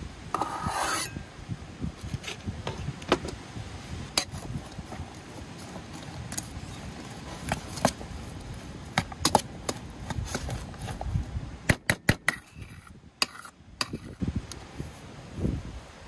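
A cleaver blade scraping food off into a metal camp pot, a short rasp about half a second in. Then scattered sharp clicks and knocks of cookware and utensils being handled, with a quick run of clicks near the end.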